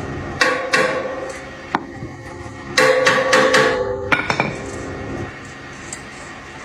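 Hammer striking metal in a series of irregular blows. Each blow rings on briefly, and there is a quick cluster of strikes around the middle.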